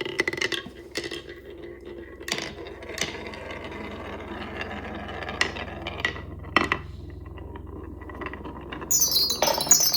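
Marbles rolling along a wooden marble-run track: a steady rumble with sharp clicks now and then as they knock against the track. About nine seconds in, a louder, busier high clatter starts.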